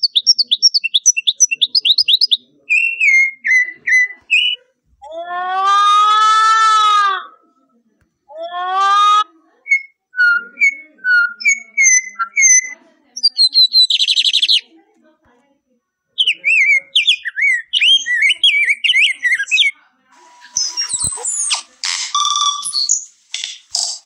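Recorded bird calls played back one after another from a phone sound app, each a few seconds long with short silent gaps between them. First come fast, high falling notes and chirps. Then a Blyth's tragopan gives two long, loud wails that rise and fall, followed by more chirps, a warbling song and a complex call with clicks near the end.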